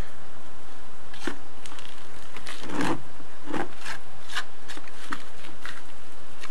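Steel spatula scraping and spreading adhesive mortar across the top of a masonry block, in a series of short, irregular strokes with a few longer scrapes.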